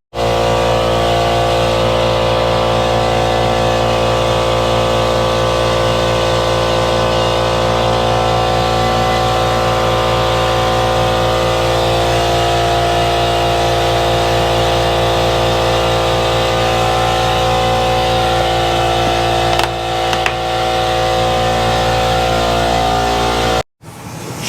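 Air compressor motor running at a steady, unchanging pitch, with a brief dip about twenty seconds in, then cutting off abruptly near the end.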